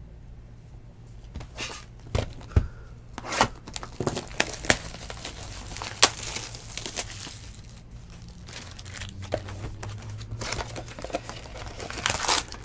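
A cardboard baseball card hobby box being handled and opened, with irregular taps and crinkly rustling as the foil-wrapped packs are lifted out.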